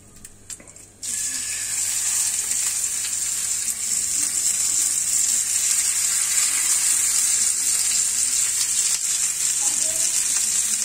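Raw red tuna steaks hitting a frying pan of hot melted fat: a loud sizzle starts suddenly about a second in and then runs on steadily as the fish fries.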